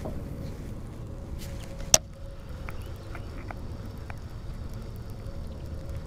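Wind rumbling on the microphone over open water, with one sharp click about two seconds in and a few faint ticks after it.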